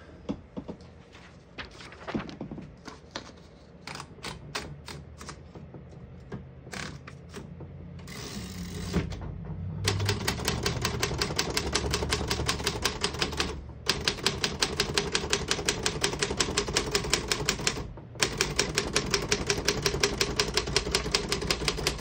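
1940 Royal KMM manual desktop typewriter. Scattered clicks come first as a sheet of paper is wound in around the platen. From about ten seconds in there is a fast, even run of keystrokes, the typebars clacking against the platen, broken by two short pauses.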